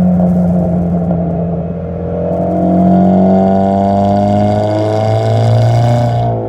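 Exhaust note of a 2000 Honda Civic through an eBay catback with home-welded baffles, recorded at the tailpipe. The engine pulls under load with its pitch climbing from about two seconds in, then drops suddenly near the end as the throttle is lifted.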